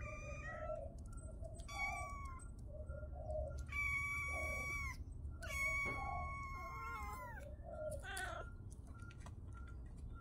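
Kitten meowing: about five high-pitched meows. The third and fourth are long and drawn out, and the fourth drops in pitch as it ends.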